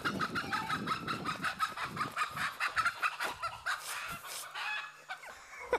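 A flock of chickens clucking in a rapid, dense run of calls that thins out after about two and a half seconds.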